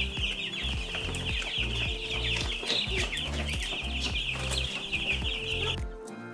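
A brooder full of baby chicks peeping all together, a dense chorus of short falling peeps. It cuts off suddenly near the end, leaving background music with a steady bass beat.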